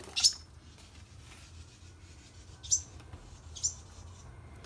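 Small birds chirping: a few short, high, downward-sliding peeps, spaced out, the loudest just after the start, over a faint low hum.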